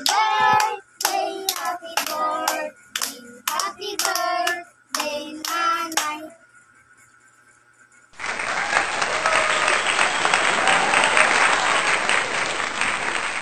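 Children singing together while clapping their hands, with sharp claps falling about twice a second for the first six seconds. After a short lull, a dense, steady wash of noise begins about eight seconds in and carries on to the end.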